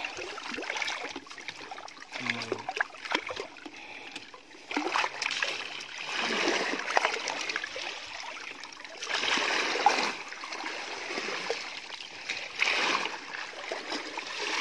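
Shallow muddy water splashing and sloshing, with wet grass rustling, as gloved hands and a plastic basket work through mud. The sound comes in several bursts of a second or two.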